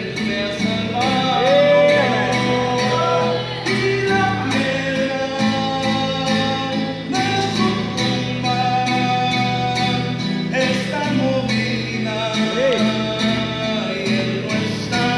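Music led by a strummed acoustic guitar, playing an instrumental passage of a Spanish-language gospel song, with a steady beat and a sliding melody line above it.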